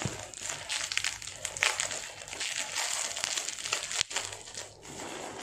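Plastic bubble-wrap packaging crinkling and crackling as it is handled and pulled at by hand, with irregular sharp crackles.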